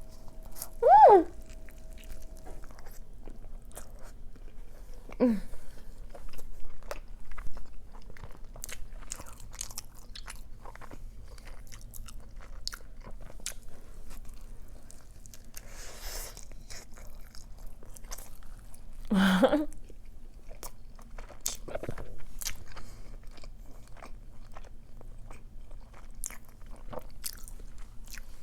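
Close-miked chewing and biting of a large burrito (flour tortilla, rice, fries, chicken), with many small wet mouth clicks. A short hum rises and falls about a second in.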